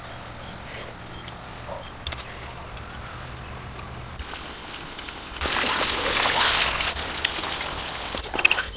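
Catfish pieces frying in hot oil in a steel wok: a loud, steady sizzle that starts suddenly about five and a half seconds in, with a few sharp clicks near the end. Before it, only faint low handling sounds.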